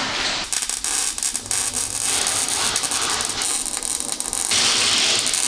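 CO2-shielded MIG welder laying a weld on a steel exhaust converter housing: a dense, steady crackle and hiss that changes in character several times as the runs stop and start.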